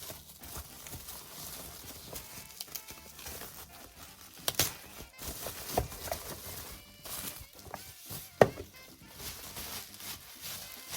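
Packaging being handled and opened: scattered rustles, clicks and knocks, with one sharp knock about eight seconds in. Background music plays underneath.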